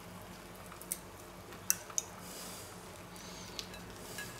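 A wooden skewer prying a baked bacon-and-egg muffin loose from a non-stick metal muffin tin: a few small sharp ticks and faint scraping, over a low steady hum.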